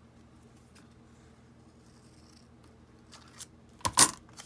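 Masking tape being worked onto cardboard: faint handling rustles, then a short, loud rasping rip of tape about four seconds in.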